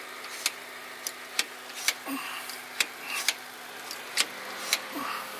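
Fuel priming pump on a freshly rebuilt Caterpillar 3406E diesel being worked to push fuel through the filter before the first start. It clicks sharply in repeated strokes, often two clicks about half a second apart, roughly once a second, over a faint steady hum; the engine is not yet running.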